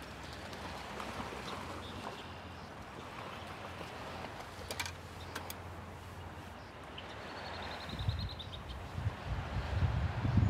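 Outdoor ambience by open water: light steady noise with a low hum, a couple of sharp clicks near the middle and a brief high bird trill about seven seconds in. From about eight seconds, a low, irregular rumble of wind buffeting the microphone grows louder.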